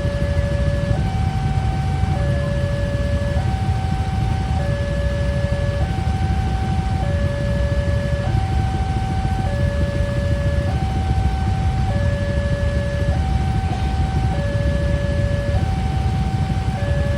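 Railway level-crossing warning alarm sounding a two-tone hi-lo electronic siren, each tone held a little over a second, over a steady low rumble.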